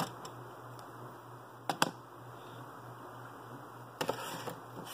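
Hard plastic clicks and knocks from a model car body being handled and set down on a table: one click at the start, two sharp clicks a little under two seconds in, the loudest, and a short clatter about four seconds in.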